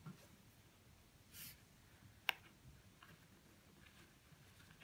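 Faint handling sounds of weaving on a cardboard loom as a plastic weaving needle and wool are worked through the warp threads: a brief soft rustle about a second and a half in and a single sharp click a little after two seconds, otherwise near silence.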